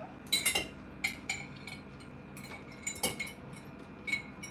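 A spoon clinking and scraping against a bowl: about a dozen light clinks at irregular intervals, each with a brief ring.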